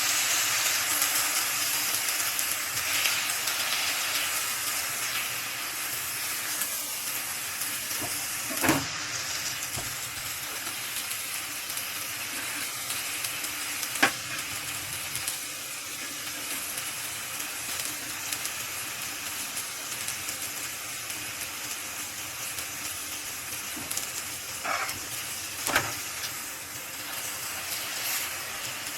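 Tortang talong, an eggplant-and-egg omelette, sizzling steadily in oil in a frying pan, with a few sharp clicks over the hiss.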